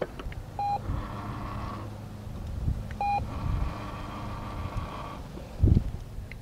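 Treat & Train remote treat dispenser sounding its short reward beep twice. Each beep is followed by a second or two of its motor whirring as it turns the dish to drop treats. A dull thump near the end.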